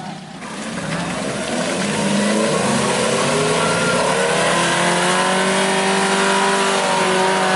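Off-road jeep engine revving up hard, its pitch climbing for the first few seconds and then held high and steady, as the jeep is driven through deep mud.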